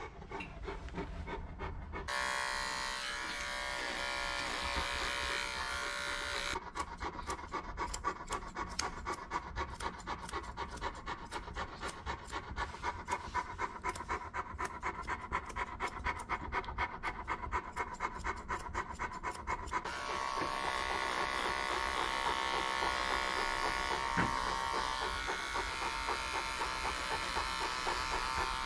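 A large Newfoundland dog panting steadily, at about two to three breaths a second. About twenty seconds in, a cordless electric pet clipper starts buzzing steadily over the panting.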